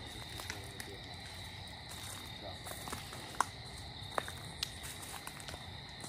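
A steady high-pitched insect trill, like night crickets, runs throughout. A few short sharp clicks and light steps are scattered through it, the loudest about three and a half seconds in.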